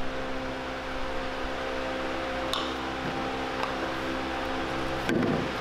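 Steady machine hum made of several even tones. Over it come a few faint, light clicks and a soft knock near the end as white PVC pipe fittings are handled and fitted together.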